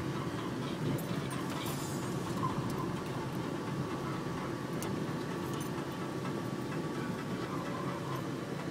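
Car driving slowly along a street, its engine and tyre noise heard from inside the cabin as a steady low rumble.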